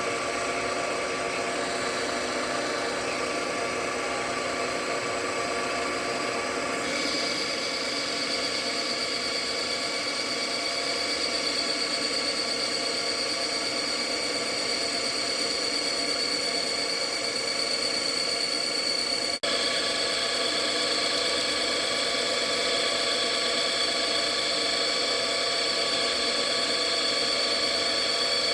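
JFMT metal lathe running at 500 RPM under power feed, taking a 3 mm-deep turning cut on steel stock of unknown grade: a steady machine whine made of several tones. A high-pitched tone joins about a quarter of the way in and holds.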